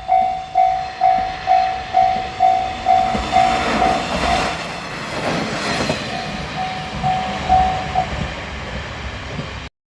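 Japanese level-crossing warning bell ringing its 'kan-kan' strokes, about two a second. A JR Shikoku 1000-series diesel railcar passes through the crossing, swelling to its loudest about five seconds in and fading. The bell stops about eight seconds in, and the sound cuts off abruptly just before the end.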